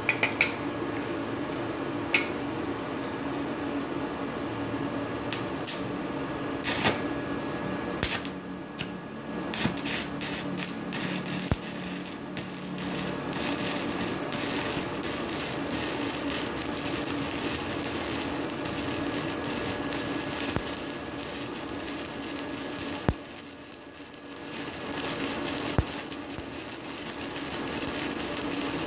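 Stick-welding arc from a Multipro MMA 200 G-JB inverter welder burning a 4 mm electrode at 80 amps, with a steady low hum underneath. A few sharp ticks come as the rod is struck, then from about eight seconds in a dense, irregular crackle, which drops off briefly near the end and picks up again. The arc holds at this low current: the machine can still run a 4 mm rod at 80 amps.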